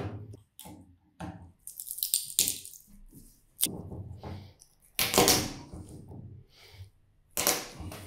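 A flat screwdriver scraping and prying at a microwave oven transformer's coil and core, in about three separate rasping strokes, the loudest a little past the middle, with one sharp click about three and a half seconds in.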